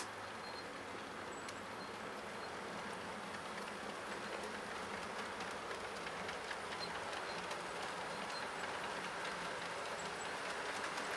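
HO scale model passenger train running along the track, a steady rolling whir of the locomotive and cars that grows slightly louder as the train approaches.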